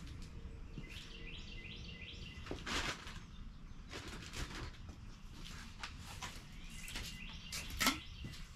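Faint clicks and knocks of the powder and shot bottles and their caps being handled on a shotshell reloading machine, the loudest about three seconds in and just before the end. A few faint high chirps come twice, early and again near the end.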